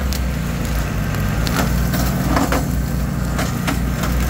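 Side-by-side and towed Swisher rough-cut mower running steadily through brush, with repeated sharp snaps and cracks of sticks and brush breaking under the wheels and mower deck.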